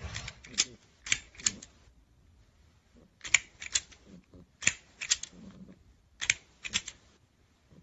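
Plastic crocodile snapper toy clacking its jaws: about five quick bursts of two or three sharp clicks, each burst a second or more apart.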